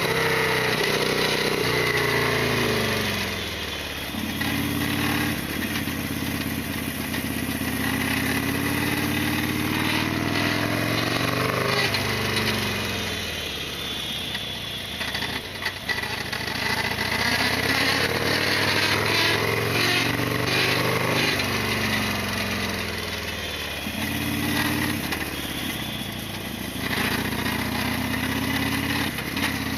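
Harley-Davidson Sportster XL1200R's air-cooled 1200 cc V-twin engine running under way. Its pitch climbs as it accelerates, then falls away and jumps again several times.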